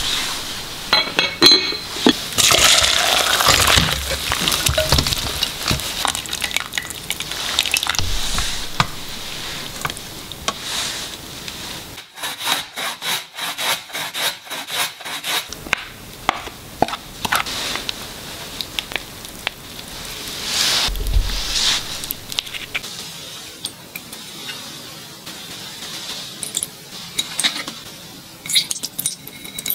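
Kitchen prep sounds: a glass pot and its glass lid being handled, then an onion half rubbed back and forth on a plastic grater in quick, even strokes around the middle, then clinks of dishes and utensils against the glass pot near the end.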